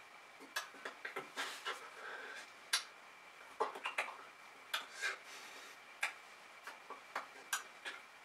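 Irregular soft clicks, taps and short breathy puffs from a person signing in sign language: hands striking and brushing together, with lip and breath noises. A faint steady high-pitched whine sits under them.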